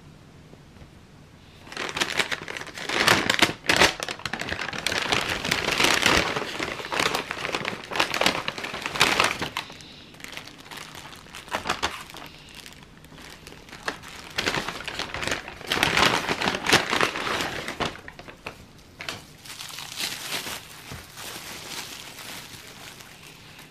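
Kraft paper bag rustling and cellophane wrappers crinkling as pastries are handled and unwrapped by hand, in irregular bursts starting about two seconds in and growing lighter near the end.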